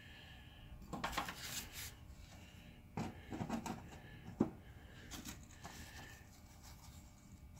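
Faint rustling and a few light clicks from hands handling a sheet of paper and a metal gear, with one sharper click about halfway through.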